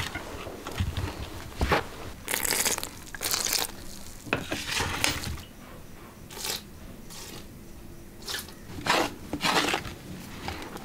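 Hands mixing and squeezing flour and water into dough in a large pottery bowl: irregular bursts of rustling and crunching as the flour is worked, with a couple of sharper clicks.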